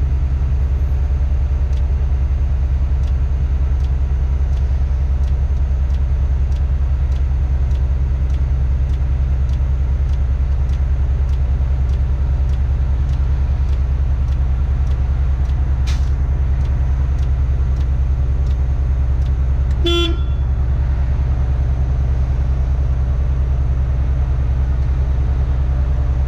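Tadano crane's diesel engine running at a steady hum, heard from inside the operator's cab, with a faint regular ticking throughout. A brief horn toot sounds about twenty seconds in.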